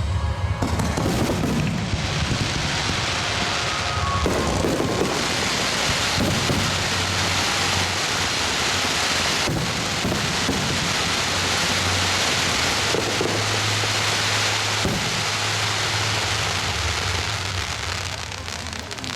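Fireworks display: a dense, continuous crackle of crackling shells, like heavy rain, over low rumbling booms, easing off near the end.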